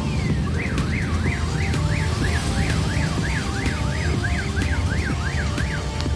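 Electronic siren in a fast rising-and-falling yelp, about three cycles a second, which stops shortly before the end. It comes over steady background music.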